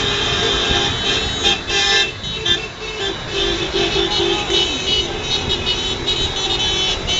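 Car horns honking over traffic noise, including a run of short, evenly repeated honks about three to five seconds in.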